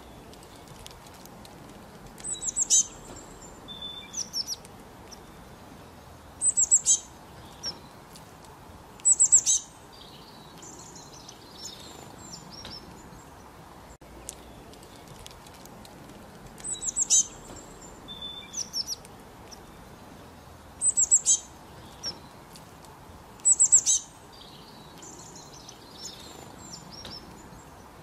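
Small songbird chirping: clusters of short, high-pitched falling chirps every few seconds, over a faint steady hiss.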